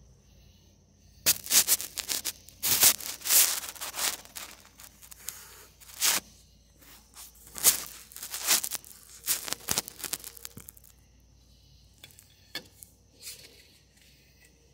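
Handling noise on a phone's microphone: loud irregular rubbing and scraping as the phone is moved and gripped, for about ten seconds, then a few faint knocks near the end.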